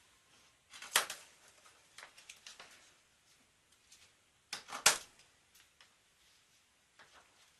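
A black plastic coin monster box being opened: sharp plastic snaps and clicks, the two loudest about a second in and near five seconds, with lighter handling clicks between.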